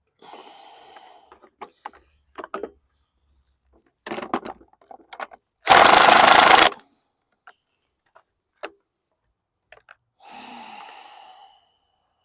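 Metal tools and mower parts clinking and knocking as bolts are worked loose. About six seconds in comes one very loud burst, about a second long, of a rapid-hammering power tool.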